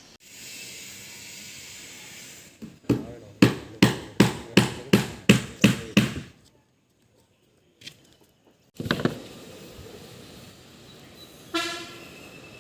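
A run of about nine sharp knocks in quick succession, a little over two a second, like hammer blows on a construction site. This is followed after a pause by a short horn-like toot near the end.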